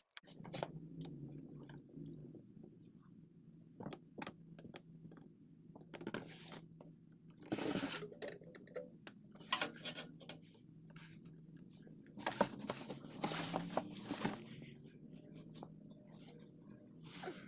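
Hand tools working the transmission oil pan bolts under a car: scattered clicks and clinks with a few longer scrapes, over a steady low hum.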